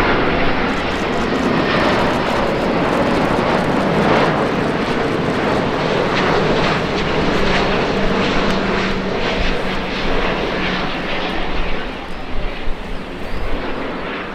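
Jet airliner engines roaring loudly as the aircraft passes, the sound fading near the end.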